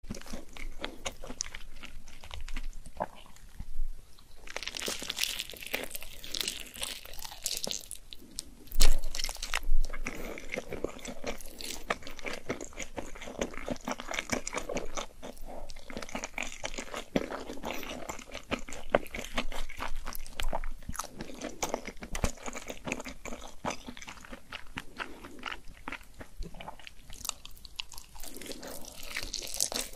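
Close-miked eating of saucy noodle wraps: wet chewing and biting with crunchy bites, the loudest two about nine and ten seconds in.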